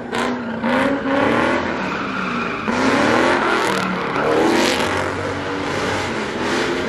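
Car engine revving hard again and again, each rev climbing in pitch, while the tyres spin and squeal as the car slides through donuts.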